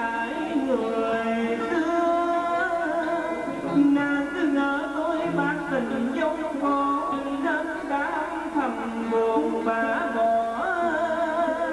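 A man singing into an amplified microphone with live instrumental accompaniment; the voice slides and wavers between held notes.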